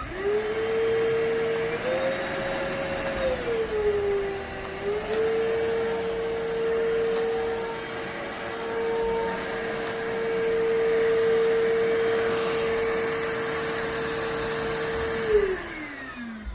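The iwoly C150 cordless stick vacuum runs with a steady motor whine and airflow hiss. The whine rises briefly about two seconds in and dips about four seconds in, then holds steady. Near the end the vacuum is switched off and the whine falls as the motor spins down.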